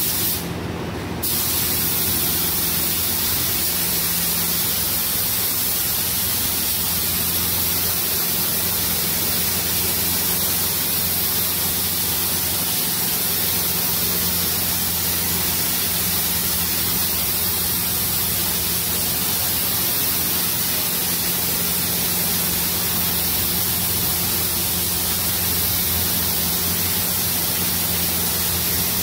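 Air-powered gravity-feed paint spray gun hissing steadily as it sprays paint onto a car body panel, with a brief break in the hiss about a second in. A steady low hum runs underneath.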